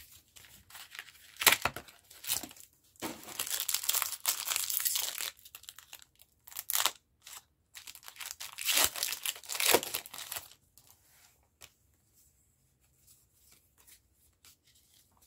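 A Pokémon TCG booster pack's foil wrapper being torn open and crinkled, in uneven bursts of rustling that stop about ten seconds in.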